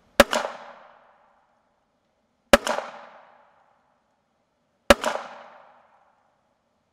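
Three single shots from an ISSC M22 .22 caliber target pistol, fired slowly a little over two seconds apart. Each sharp crack trails off over about a second.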